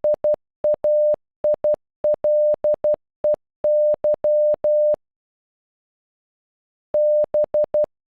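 Morse code beeps at one steady pitch spelling out BAILEY: the tail of the B, then .- .. .-.. . -.--. After about two seconds of silence, a B (-...) starts again near the end.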